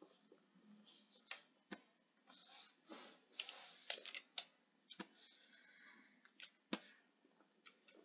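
Faint, irregular clicks of a computer mouse and keyboard, about a dozen over several seconds, with soft hiss-like noise between them.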